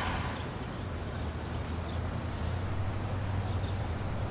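Steady low hum with a faint even hiss of background ambience.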